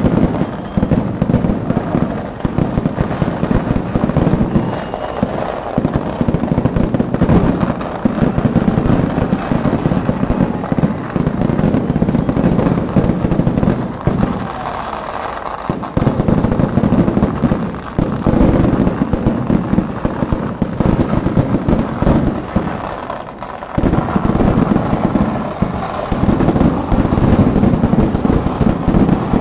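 Kerala temple-festival fireworks (vedikettu): a dense barrage of firecrackers and aerial shells going off in rapid succession, an almost unbroken rattle of bangs. It eases in a short lull about halfway through and again, more briefly, later on.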